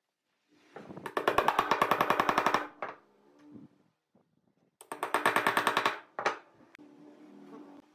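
Wooden dowels being tapped into drilled holes in a curved hardwood piece with a wooden block. There are two quick runs of rapid, evenly spaced knocks, each lasting about a second, and a single knock after the second run.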